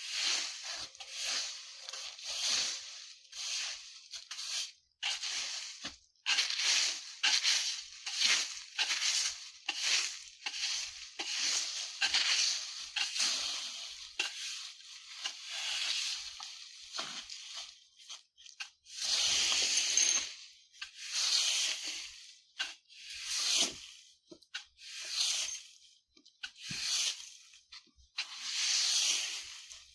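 A broom sweeping dry leaves across the ground in repeated rustling strokes, roughly one a second, with short pauses between them.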